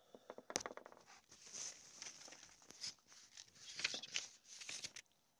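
Handling noise from a phone being picked up and moved: a dense run of clicks, knocks and rubbing against its microphone, cutting off suddenly about five seconds in.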